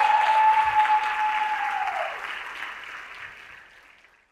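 Audience applauding, with a steady high tone held over the clapping that slides down in pitch and stops about two seconds in; the applause then fades out.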